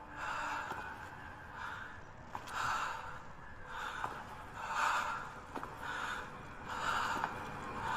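A person breathing heavily in and out, about one breath a second.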